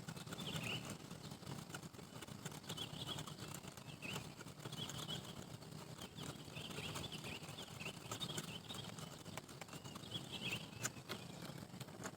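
Outdoor background with small birds chirping in short high calls again and again, over a low steady rumble, with a few sharp clicks.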